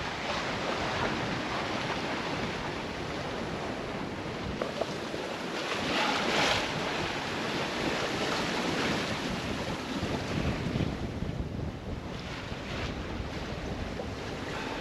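Wind and waves at sea in rough weather: a steady rush of wind on the microphone and waves washing, with a louder surge about six seconds in.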